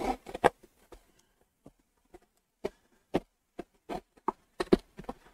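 Fingers picking at and peeling packing tape on a cardboard shipping box: a string of short, irregular taps and crackles.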